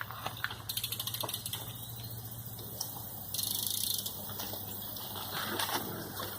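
BMX bike's rear hub clicking rapidly as the bike coasts, a fast even ticking about a second in, with rolling noise and a steady low hum.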